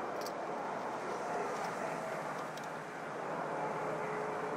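Steady background hum of distant engine noise, with a few faint light clicks.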